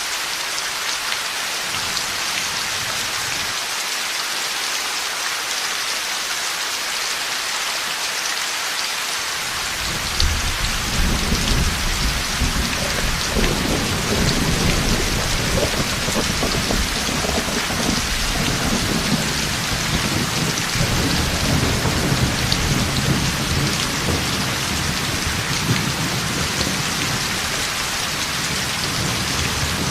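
Heavy rain falling steadily; about ten seconds in, a long low rumble of thunder begins and rolls on for the rest.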